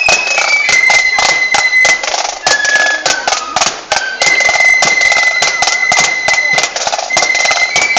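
Amateur band noise: shrill held notes stepping between a few pitches over fast, irregular clattering percussion.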